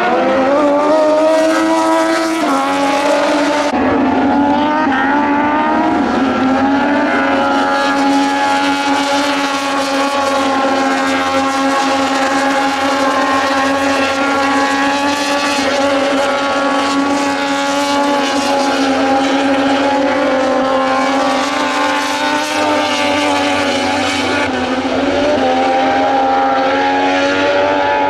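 Several Moto2 racing motorcycles with Triumph 765 cc three-cylinder engines running at high revs, their notes overlapping as they pass through the corners. The pitch rises and drops in steps over the first few seconds, then holds steady.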